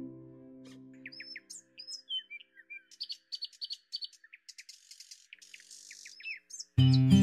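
Small birds chirping, many short high calls rising and falling in pitch, with brief quiet gaps between them. Plucked guitar music fades out in the first second and comes back suddenly near the end.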